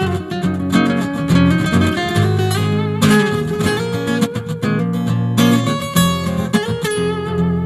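Music led by a strummed acoustic guitar, playing chord after chord.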